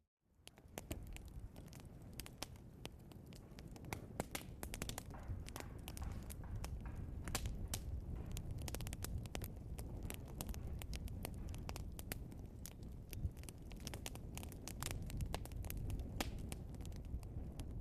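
Log fire in a fireplace crackling and popping: many small sharp snaps over the low steady rumble of the flames, fading in from silence at the start.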